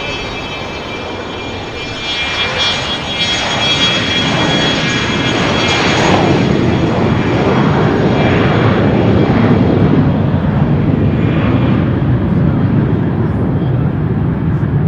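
Cessna Citation II/SP's twin Pratt & Whitney JT15D turbofans at takeoff power: a buzzing whine made of many high tones over a broad jet roar. It grows louder about two seconds in, then the high tones fade while a low rumble carries on.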